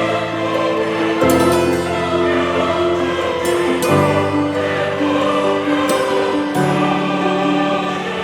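Background music: sustained choir-like chords that change about every two and a half seconds.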